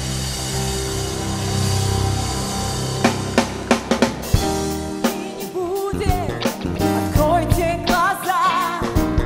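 Live band playing: held keyboard chords over a bass, then drum kit hits come in about three seconds in, and a singing voice with a wavering pitch joins about halfway through.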